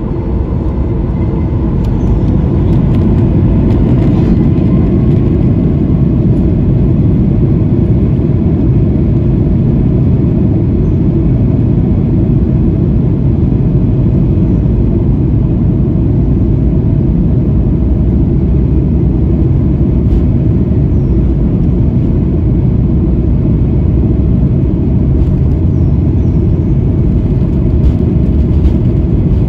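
Boeing 737 jet engines heard from inside the cabin, spooling up to takeoff thrust with a faint rising whine over the first few seconds. They then hold a steady, loud rumble through the takeoff roll.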